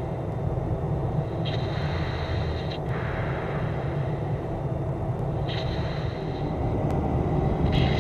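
Steady cockpit noise inside a two-seat F/A-18 Hornet in flight: a low rumble of jet engines and airflow, with a higher hiss cutting in and out a few times.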